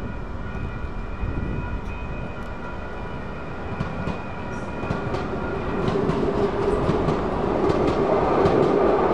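Siemens Duewag U2A light rail train approaching and passing through a grade crossing, getting louder as it arrives, its wheels clicking over the rail joints and crossing. Over it, the crossing's warning bells ring steadily.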